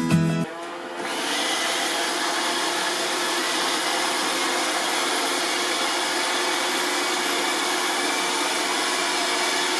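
iRobot Roomba robot vacuum running, starting about a second in and then holding a steady whirr with a faint high whine on top.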